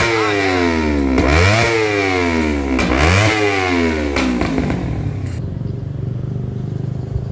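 Honda CBR250RR parallel-twin engine breathing through an Arrow Thunder Competition titanium full exhaust system, revved in quick throttle blips that sweep up and fall back about every second and a half, then settling to a steady idle about five seconds in.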